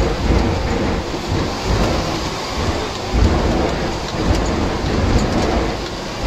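Beriev Be-200 amphibious aircraft's hull running on the sea just after touching down, heard inside the cockpit: a loud, dense rush of water against the hull, with uneven low thumps as it rides over the waves.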